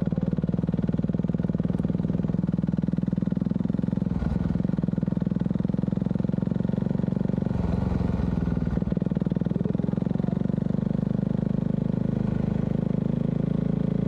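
Motorcycle engine running steadily at a constant cruise, with no revving or gear changes.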